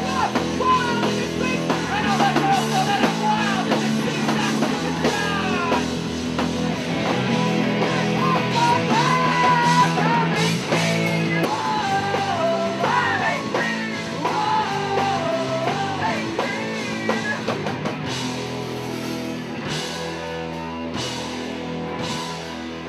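Punk rock band playing: sung vocals over electric guitar and drum kit. The singing drops out about three-quarters of the way through while the guitars and drums carry on.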